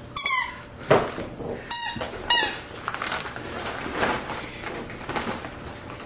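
Squeaky dog toy squeezed several times, giving short high squeaks in the first couple of seconds.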